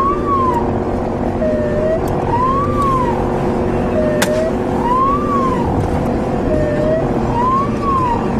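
Russian police car siren cycling: a short low note, then a tone that rises and falls, repeating about every two and a half seconds over the steady drone of a vehicle engine and road noise. A single sharp click about four seconds in.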